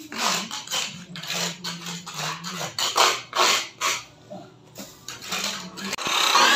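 Scattered clicks and rustles, then about six seconds in an abrasive cut-off saw starts cutting through a metal channel with a loud, continuous grinding noise.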